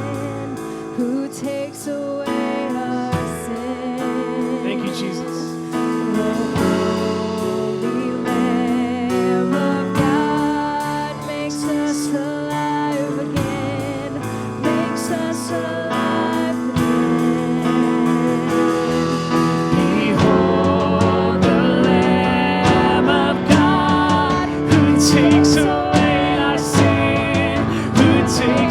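Live worship band playing a contemporary Christian song, with singing over guitar and keys; the music grows louder about two-thirds of the way through.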